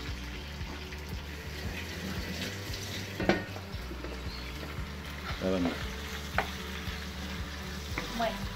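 Sliced garlic sizzling steadily in hot olive oil in a wok, with a few sharp clicks and knocks from utensils and stirring.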